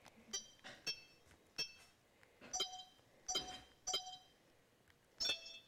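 Sony Handycam HDR-PJ260V touch-screen operation beeps as menu items are tapped: about seven short, high chiming tones, each starting with a click, at irregular intervals.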